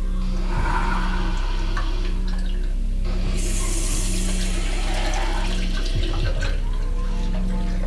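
Water running from a bathroom tap into a sink as hands are washed under it, over a low steady hum.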